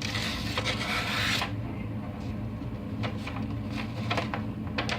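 A knife blade drawn in one long rasping scrape of about a second and a half, followed by fainter scraping and light clicks.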